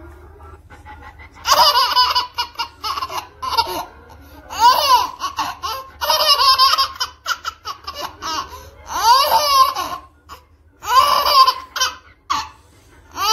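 Baby laughing in about five separate bouts of quick, breathy, pulsing laughter, with short pauses between them.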